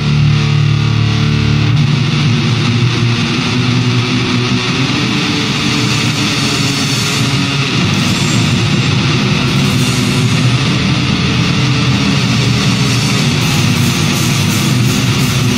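Early-1990s death metal recording: a dense riff on heavily distorted electric guitars, played loud and without a break.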